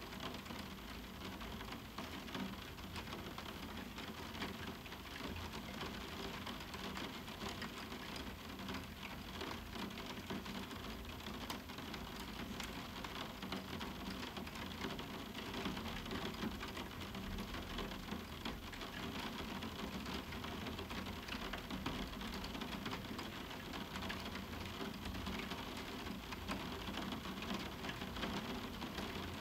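Moderate summer rain falling on a roof window (skylight): a steady, even patter of many small drop impacts on the window.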